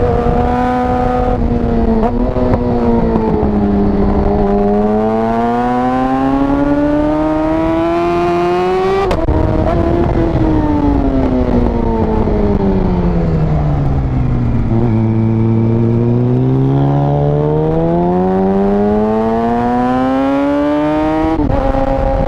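Yamaha R6 inline-four sport-bike engine under hard riding. The revs fall away briefly, then climb hard to a sudden gear change about nine seconds in. They drop off for several seconds, as when easing off into a corner, and climb again to another quick shift near the end.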